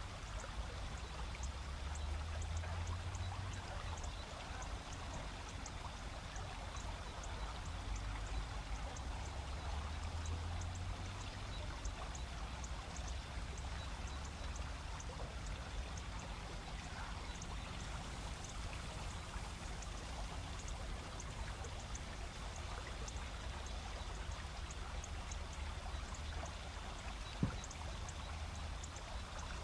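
A river's rapids run with a steady rush, while autumn insects chirp in a fast, even high-pitched pulse. A single sharp click comes near the end.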